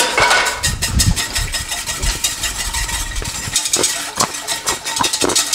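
A small motor running steadily with a rough, fast rattle and grinding throughout, with a few louder knocks in the second half.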